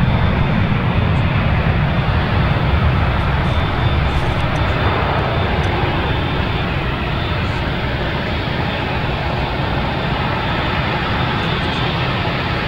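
Airbus A380's four turbofan engines running at taxi power as the jet rolls slowly: a loud, steady rumble with a faint high whine, easing slightly after a few seconds.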